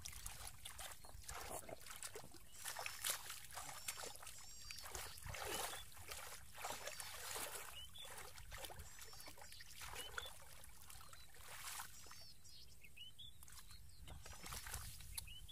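Hands sloshing and splashing through shallow muddy water and soft mud, groping for fish in irregular bursts that thin out toward the end.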